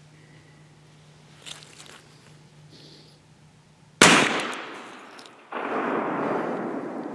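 A single black-powder shot from a T/C Omega muzzleloader about four seconds in: one sharp, loud crack that dies away over about a second. About a second and a half later comes a longer rolling rumble that slowly fades.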